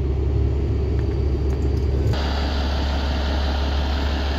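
Kenworth W900 semi truck's diesel engine idling, a steady low rumble. About two seconds in, the sound turns abruptly fuller and brighter.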